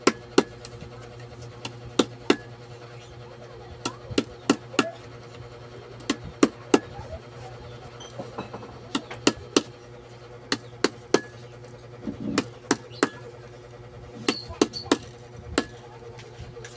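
Small mallet tapping copper winding wire down into the slots of an alternator stator during a rewind: sharp, irregular taps, often in quick pairs, with a short pause in the middle. A steady low hum runs underneath.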